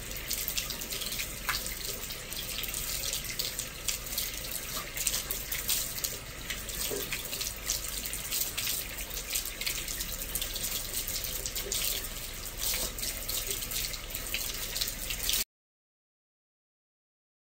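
Water running and splashing steadily in an outdoor bathtub. It cuts off abruptly near the end.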